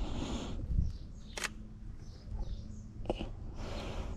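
Shutter of a Sony a6300 mirrorless camera clicking twice, about a second and a half apart, with faint birdsong behind.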